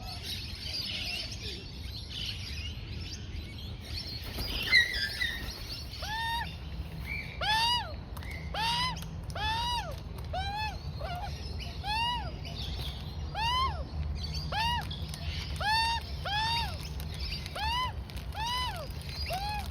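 Juvenile Australian magpie calling while being fed: from about five seconds in, a steady run of short calls that rise and fall, one or two a second. Before that come mixed chirps and a single sharp knock.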